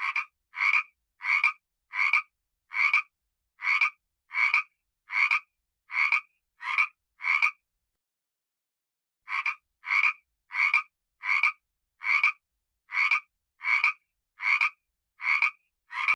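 Frog croaking in a steady series, about one croak every 0.7 seconds, with a pause of nearly two seconds about halfway through before the croaking resumes.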